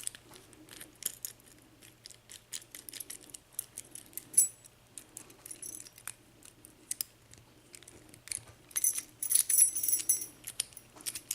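Small metallic clicks and clinks of a brass Euro cylinder lock and its key being handled and worked on by hand during disassembly, with a denser run of jingling about nine seconds in.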